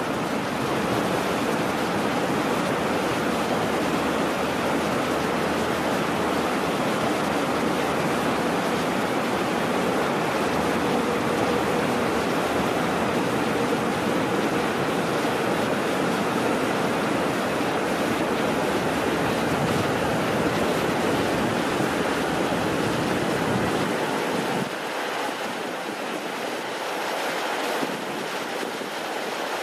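Rushing white-water river running steadily. About 25 seconds in, it turns a little quieter and thinner.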